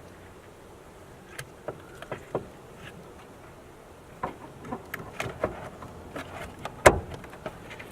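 Scattered light clicks and taps of a steering wheel boss hub and its wiring being handled and fitted onto the steering column, with one sharper knock near the end.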